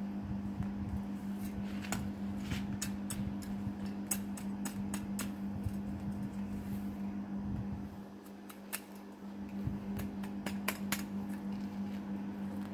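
Sharp scrapes and clicks of a small metal weeding blade digging and scraping at dry sandy soil, coming in two runs of quick irregular strokes, one in the first half and one toward the end. A steady low hum runs underneath.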